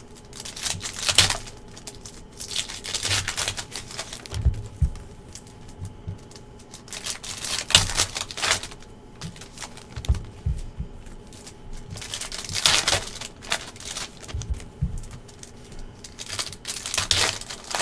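Foil-wrapped trading-card packs being torn open and crinkled by hand, in about five bursts of crinkling, with a few soft knocks from cards handled on the table in between.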